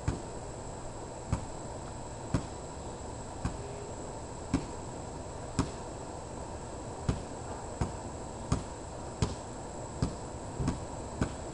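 Sharp clicks about once a second, slightly uneven, over a steady low background noise and a faint high steady whine.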